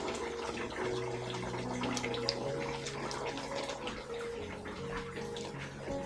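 Chicken curry simmering in an open pot on the stove: a steady bubbling hiss with many small pops and crackles throughout.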